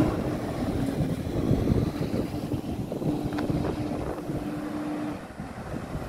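Garbage truck driving away, its engine running with a steady hum that fades and stops about five seconds in. Wind buffets the microphone, and a car passes close by.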